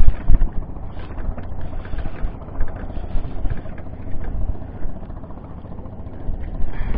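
Small fishing boat's engine running steadily at idle, a low rumble, with small clicks and knocks from the spinning reel and rod as the line is wound in.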